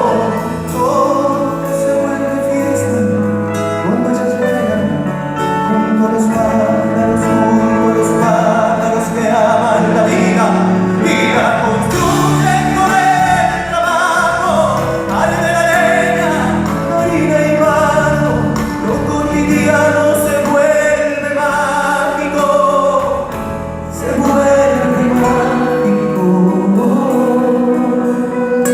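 Live Argentine folk music: a singer's voice carrying a melody over band accompaniment, with a short dip in loudness near the end.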